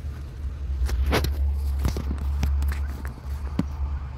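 Handling noise at the car's dashboard: a short scraping rustle about a second in, then several sharp clicks and knocks, over a steady low rumble.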